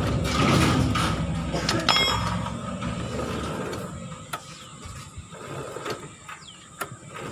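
Metal tool clinks and a few sharp clicks as a motorcycle wheel is fitted back on, with a ringing clink about two seconds in, over a passing vehicle's noise that fades away in the first few seconds.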